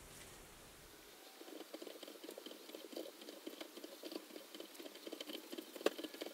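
Hand tap being turned with a tap wrench, cutting threads into an aluminium block held in a bench vise. It makes faint, rapid, irregular clicking and creaking that starts about a second in, with one sharper click near the end.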